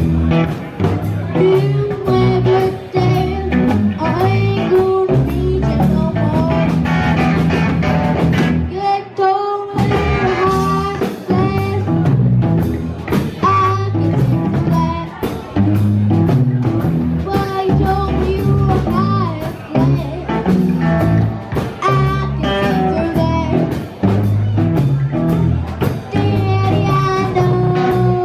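Live blues band: a harmonica played cupped into the vocal microphone, with long held and bending notes, over electric guitar, bass guitar and drum kit. The band drops out briefly about nine seconds in, then comes back in.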